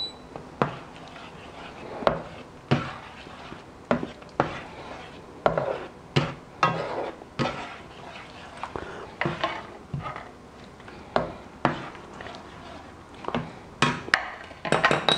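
Plastic slotted turner stirring thick tomato sauce in a stainless steel frying pan. It knocks and scrapes against the pan at an uneven pace, one or two knocks a second.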